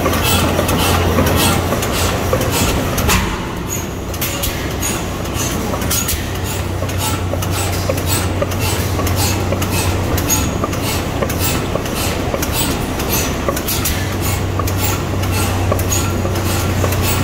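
Antique Deutz twin-cylinder slide-valve side-shaft engine running, with a steady low hum under an even, fast run of clicks. There is a sharper knock about three seconds in.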